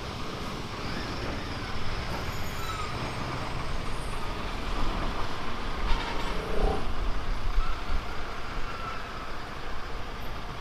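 Road traffic heard from a moving motorcycle: a steady low rumble of engines with road and wind noise, and other vehicles such as trucks and buses around.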